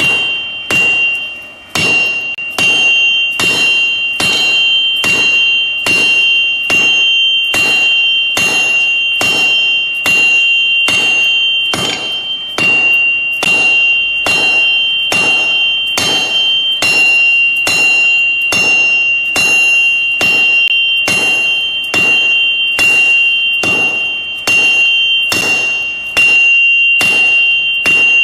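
Hammer striking a steel anvil in a steady rhythm, about three blows every two seconds. Each blow leaves a high metallic ring that carries on between strikes.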